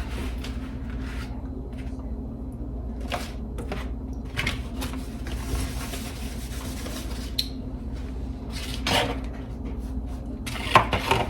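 Kitchen clatter: dishes and utensils knocking and clinking and a cupboard opening or closing, in scattered short knocks over a steady low hum. The sharpest knock comes near the end.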